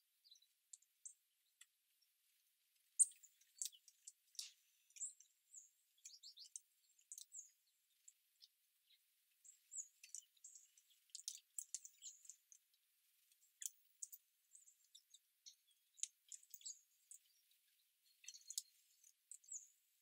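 Faint short, high chirps and call notes from small songbirds, scattered irregularly and overlapping, thickest in the middle and latter part.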